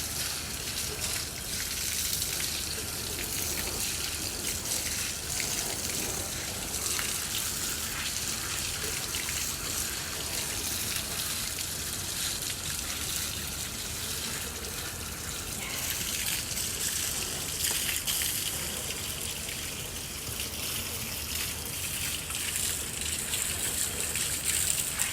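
Water running steadily as leaves are rinsed under it.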